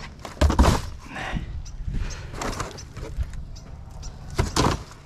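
Cardboard boxes rustling, scraping and knocking as they are dropped back into a plastic wheelie bin, with a loud knock about half a second in and another near the end.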